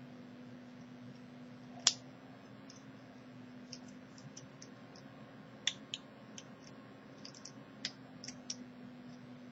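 Small, irregular metallic clicks and ticks of a half-diamond lock pick and tension wrench working the pins of an Iseo 5-pin euro cylinder lock as it is picked. A sharper click comes about two seconds in, and a scatter of clicks follows in the second half.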